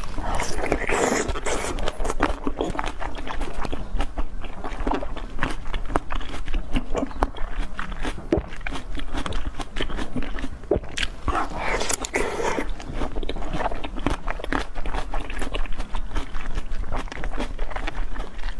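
Close-miked mouth eating sounds: biting and chewing, with many quick wet clicks and smacks throughout.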